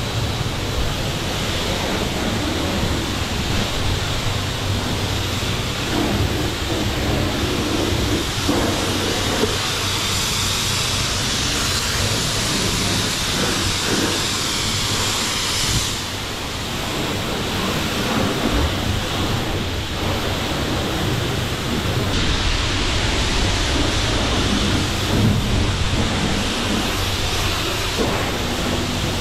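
High-pressure soap spray from a car-wash wand hissing steadily as it strikes the car's body panels. The hiss brightens for several seconds near the middle and shifts again as the spray moves to a different part of the car.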